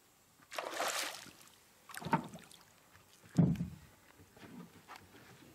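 Hooked Papuan black bass splashing and thrashing at the water's surface beside the boat, in several separate bursts of splashing, the loudest and deepest about three and a half seconds in.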